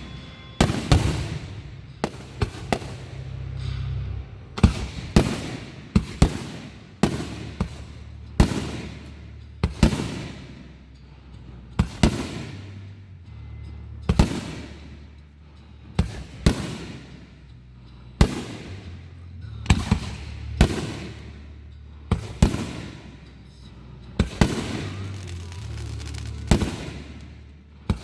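Aerial fireworks shells bursting one after another, about one a second, each sharp bang trailing off in a long echoing tail. Music with a bass line plays underneath.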